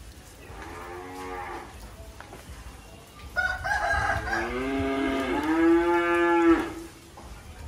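Cattle mooing: a soft call about half a second in, then a longer, louder moo from about three and a half to six and a half seconds that holds a steady pitch before stopping.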